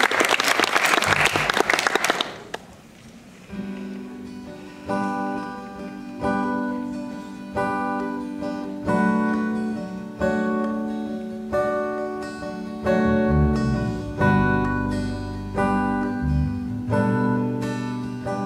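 Audience applause dies away in the first couple of seconds. Then an acoustic guitar starts a song intro with strummed chords about every second and a half, and an electric bass guitar joins with low notes about two-thirds of the way in.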